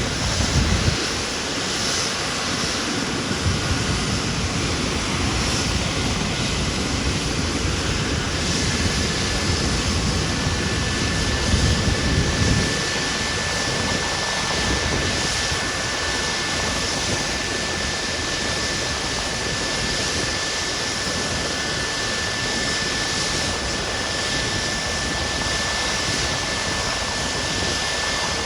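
Rescue helicopter's turbine engines and rotor running steadily, with a thin, high, steady whine over the noise. Louder low rushes of rotor wash come near the start and again about eleven to twelve seconds in.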